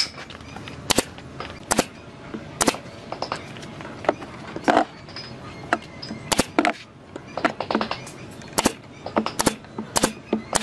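Pneumatic nail gun driving nails into pine boards. It fires a string of sharp shots, about one a second, with fainter clicks and knocks between them.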